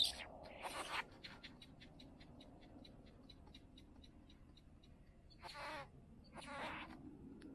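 Great bowerbird at its bower giving harsh, hissing rasps, with a fading run of quick ticks, about six a second, between them. There is one rasp at the start and two more in the later part.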